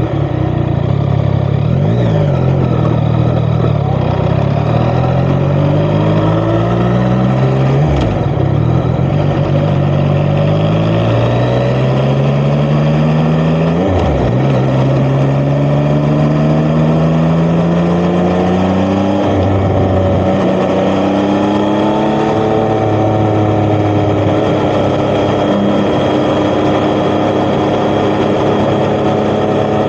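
Yamaha XSR900's inline-three engine through an Akrapovic titanium exhaust, accelerating hard: its pitch climbs and drops sharply with upshifts about 2, 8 and 14 seconds in, then it settles into a steadier cruise for the rest of the ride.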